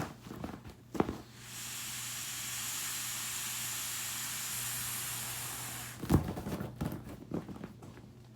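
Air hissing steadily out of an inflatable beach ball for about four seconds, with handling knocks and thumps before and after the hiss.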